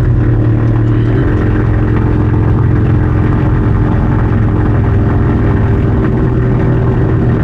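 Pipistrel Taurus electric glider's motor and propeller running on low power as the glider taxis, heard from inside the cockpit: a steady hum with a low drone, its pitch stepping up a little about a second in, over the rumble of the wheels rolling.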